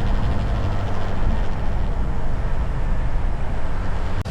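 Motorcycle engine running steadily, a low drone.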